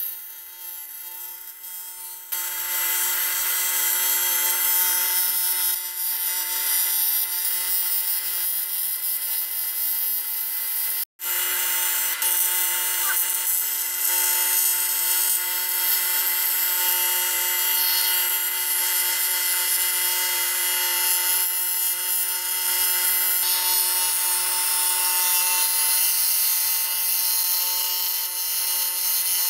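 TIG welding arc on an aluminium cylinder head, a steady hiss with a constant hum under it, welding up cracks in a combustion chamber. It gets louder about two seconds in and cuts out for an instant near the middle.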